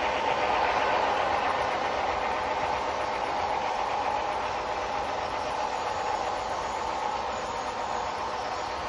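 HO scale model train running along the layout track, a steady mechanical running sound with a strong mid-pitched hum. It eases a little after the first second or so.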